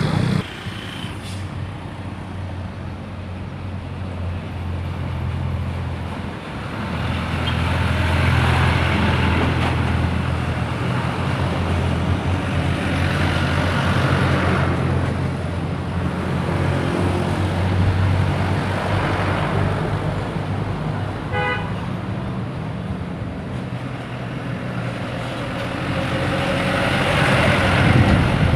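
Loaded trucks' engines running low and steady as they pass on the road, the traffic sound swelling several times as vehicles go by. A short horn toot sounds about three quarters of the way through.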